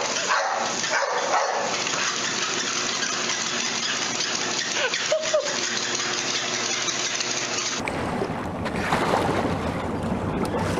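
Motorised treadmill running with a steady whir, with a short high whine from the dog on it about five seconds in. Near the end the sound changes abruptly to wind and water noise from a boat on open water.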